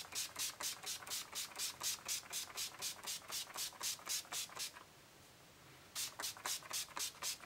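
Mario Badescu facial spray (aloe, chamomile and lavender) pump-mist bottle being sprayed again and again, each pump a short hiss, about four a second. After almost five seconds there is a pause of about a second, then a shorter run of quick sprays.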